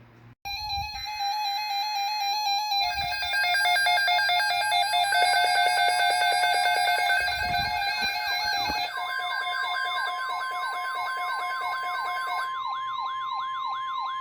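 Electronic siren-like alert tones that change pattern. First comes a steady alternating two-note tone, then a fast warble from about three seconds in, then repeated rising-and-falling sweeps that a steady high tone joins about nine seconds in.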